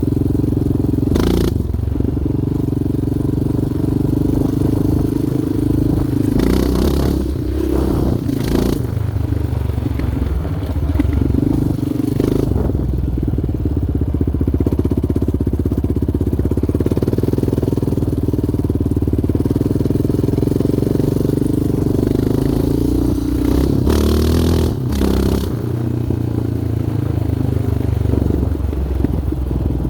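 Yamaha Raptor 700R quad's single-cylinder four-stroke engine running while it is ridden. The revs rise and fall a few times, mostly about a quarter of the way in and again near the end, with a few short rushes of noise.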